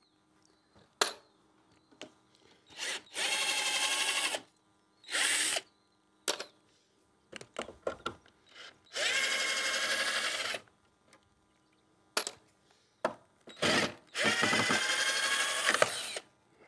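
Cordless drill-driver running in four bursts at a steady pitch, each lasting up to about two seconds. Short clicks and knocks of handling come between the bursts.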